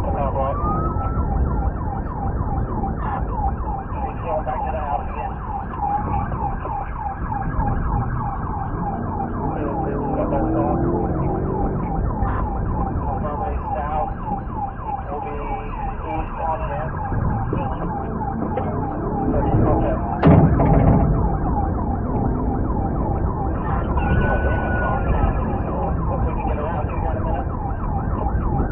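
Police car siren on a fast yelp, several rising-and-falling sweeps a second, over engine and road rumble. One loud thump about twenty seconds in.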